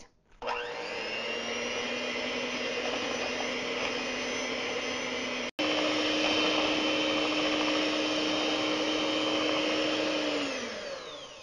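Electric hand mixer whirring as its beaters whip a cream cheese and whipped-cream filling in a ceramic bowl. It starts about half a second in and runs at a steady pitch. After a brief dropout about halfway it runs louder and higher, then spins down with a falling whine near the end.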